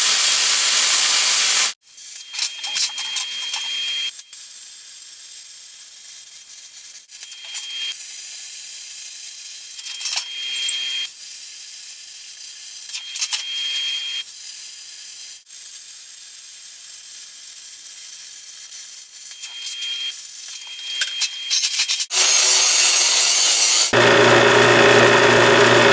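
Plasma cutter cutting quarter-inch steel plate: a steady hiss of air and arc, loudest for the first couple of seconds and again near the end, quieter between with a thin high whine that comes and goes. Near the end a drill press motor hums as it drills holes in the plate.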